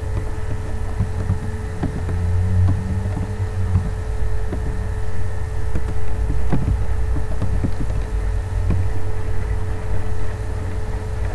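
Steady low rumble with a constant hum, dotted with faint scattered clicks.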